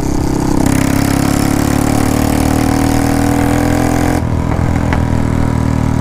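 Royal Enfield Bullet 350's single-cylinder four-stroke engine running through a fitted Kawasaki ZX-10R exhaust while cruising down the highway. About four seconds in the sound changes and its upper hiss falls away.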